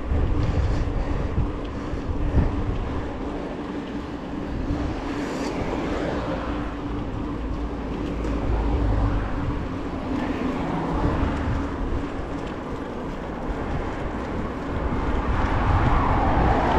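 Wind rumbling on the microphone of a mountain bike ridden along a road, with a steady hum and cars passing: one swells up about five seconds in and another near the end.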